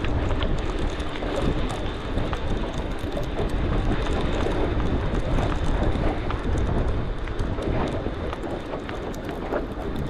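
Conventional fishing reel being cranked steadily, its gears giving a continuous whirring rattle over a steady low rumble.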